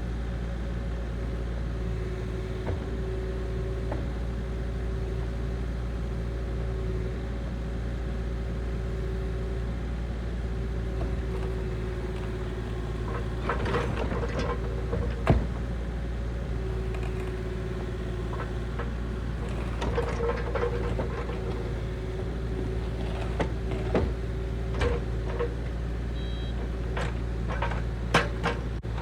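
Kubota KX040-4 mini excavator's diesel engine running steadily, with a whine that comes and goes as the hydraulics work. Sharp clanks and knocks are scattered through, more of them in the second half.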